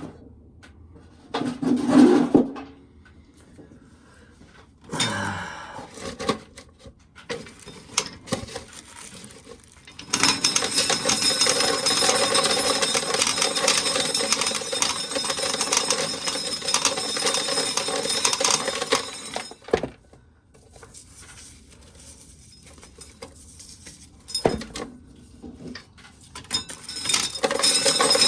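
A knock about two seconds in, then a corn sheller running steadily with ears of corn being shelled through it, the kernels rattling, for about ten seconds before it stops abruptly; it starts again near the end.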